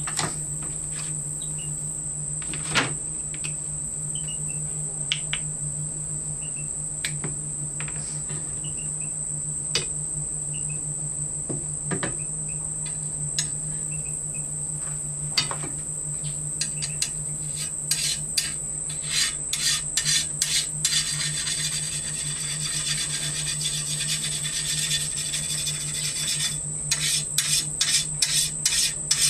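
Sharpening stone rubbed on the steel blade of a hand-forged wakizashi. The strokes are scattered at first, then from about two-thirds of the way in come as a quick, steady run of back-and-forth scrapes. A steady high insect drone, like crickets, runs underneath.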